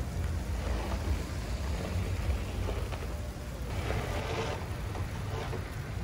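Snowstorm street ambience: a steady low rumble with a hissing swell about four seconds in.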